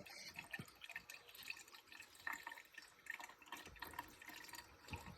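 Coolant trickling and dripping faintly as it is poured from a jug into an engine's cooling system, with irregular small splashes.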